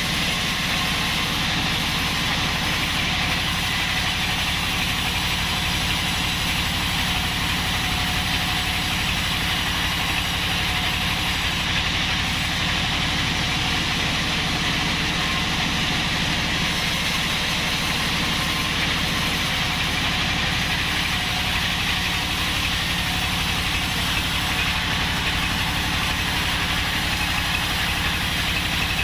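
Band sawmill running steadily: a constant machine drone with a hiss above it and no change in pace.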